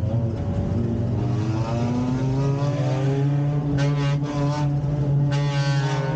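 Stock car engine heard from inside the car at racing speed, the pitch climbing as it accelerates. Two short, sharper, higher-pitched passages come about four seconds in and again near the end.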